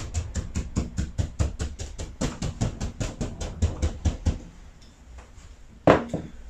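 Stippling brush dabbing on a board wet with a dark grey glaze-and-varnish coat, to texture the glaze: quick even taps, about five or six a second, that stop about four seconds in. Near the end comes one sharp knock.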